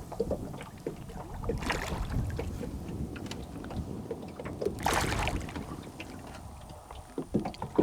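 Wind and water noise from an open boat, a low rumble with scattered small knocks, and two short splashy rushes about two and five seconds in.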